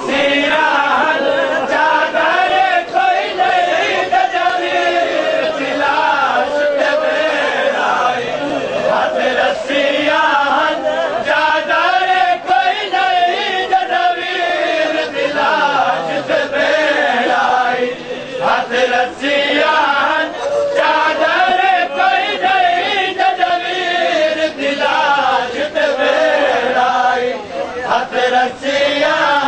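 Crowd of men chanting a Punjabi noha, a Shia mourning lament, together in a wavering, rising-and-falling melody, with scattered sharp slaps of chest-beating (matam).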